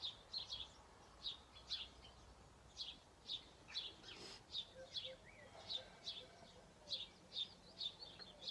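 A bird chirping over and over, short high chirps about twice a second, often in pairs. There is a faint click about four seconds in.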